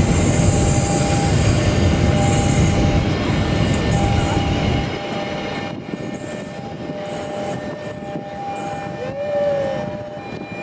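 Passenger train carriages rumbling past over the rails, loud and deep at first, then quieter from about five seconds in. Thin steady high tones come and go above the rumble.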